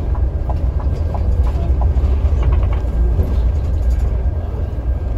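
Scania K410 coach under way, heard from inside the cabin: a steady low rumble of engine and road noise.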